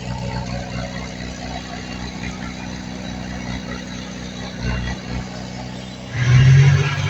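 Diesel engine of heavy earthmoving machinery running steadily with a low hum, with a few dull knocks about five seconds in. Near the end the engine suddenly grows much louder.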